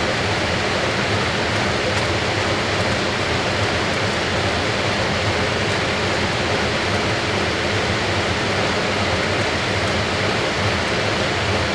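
Fisher & Paykel AquaSmart top-loading washing machine spinning its drum: a steady rushing noise, like pouring water, with a low hum underneath.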